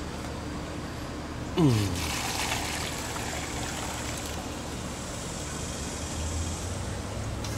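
Wet black-powder slurry in alcohol being poured from a metal pot into a cloth-lined colander: a steady splashing, gushing pour that starts about one and a half seconds in. The pour begins with a brief falling-pitched sound, the loudest moment.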